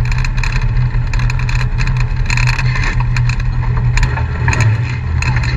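Off-road vehicle engine running steadily at low speed, with irregular clicks and crunches over it.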